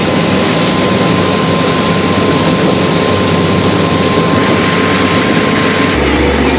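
Motorboat engine running at speed, mixed with the rush of water and wind. About six seconds in, the sound changes to a deeper, steadier hum.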